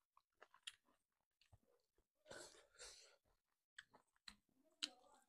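Faint chewing and scattered soft mouth clicks from eating rice and beef curry, picked up close by a lapel mic, with two short hissy sounds a little after two and three seconds in.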